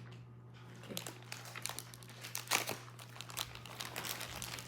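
Crinkling of plastic blind-bag packets being handled, a run of quick rustles after a quiet first half-second, loudest about two and a half seconds in.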